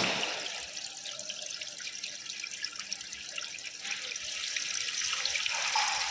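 Water running and splashing steadily, starting abruptly and growing a little louder about four seconds in.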